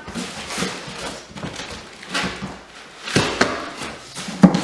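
A large cardboard shipping box and its packing being handled: scraping, rustling and irregular knocks, with one sharp knock near the end.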